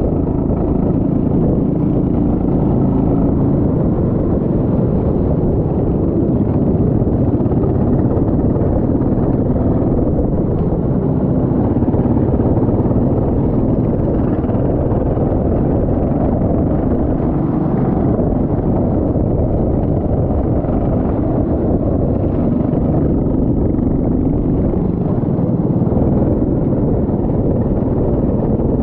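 Racing kart engine running continuously at speed, its pitch rising and falling, over a steady low rumble.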